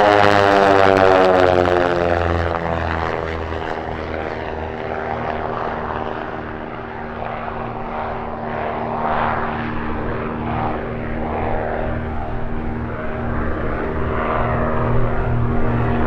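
Cessna O-2A Skymaster's twin piston engines, one pulling at the nose and one pushing at the tail, running hard on a low pass. The engine note drops in pitch as the plane goes by, then settles into a quieter, steady drone as it climbs away, growing louder again near the end.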